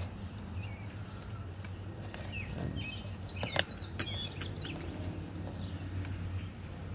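Small birds chirping in short calls, with a few light clicks and taps as cardboard nesting tubes are pressed into a tube-shaped mason bee house; the sharpest click comes about halfway through. A steady low hum runs underneath.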